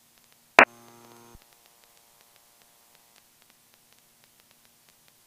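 A sharp click and then a short, low buzzing electronic tone from the cockpit avionics, lasting under a second and cutting off abruptly, over a faint steady electrical hum.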